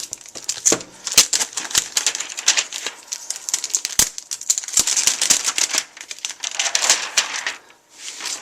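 Packaging being handled during an unboxing: rustling and crinkling with many quick clicks and taps, easing off near the end.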